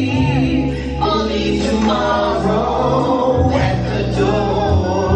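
Music: a woman singing into a microphone over a loud backing track with a steady heavy bass, other voices singing along.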